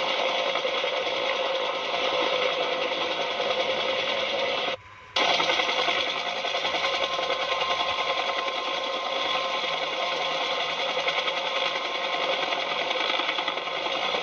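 Battery-powered toy helicopter's small electric motor and gears running with a steady rattling buzz. The buzz cuts out for about half a second near five seconds in, then carries on unchanged.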